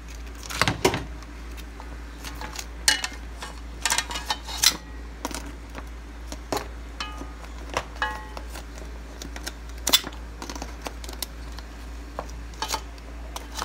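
A pot of whole lobsters boiling on a stovetop: irregular ticking and clinking, a few clinks with a short metallic ring, over a steady background.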